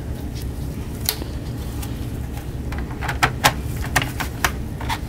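Plastic bottom cover panel of a laptop being fitted back on and pressed down by hand: about six sharp clicks and taps, mostly in the second half.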